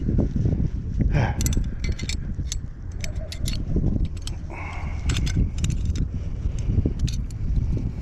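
Wind buffeting the microphone in a steady low rumble, with scattered light clicks and rattles.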